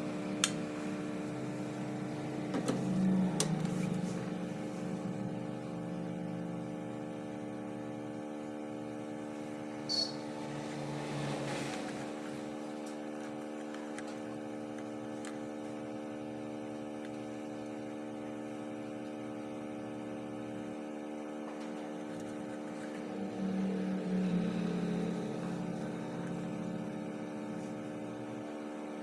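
Steady electrical hum with several evenly spaced tones, broken by a few sharp clicks.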